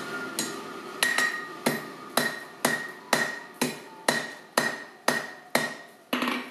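Hand hammer striking a hot steel bar over the anvil's horn in a steady rhythm of about two blows a second, each with a short metallic ring, bending the bar round into a ring. The steady blows begin about a second in.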